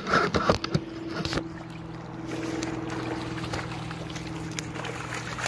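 Steady low engine drone that sets in about a second and a half in and holds, with a few clicks and knocks before it.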